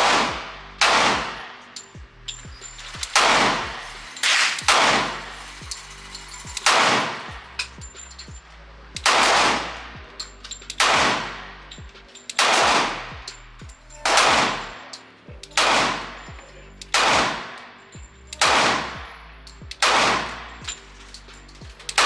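Glock 30S .45 ACP pistol firing a slow string of more than a dozen shots, roughly one a second, each ringing out with a long echo off the indoor range. The pistol cycles through the whole string without a stoppage on its factory trigger.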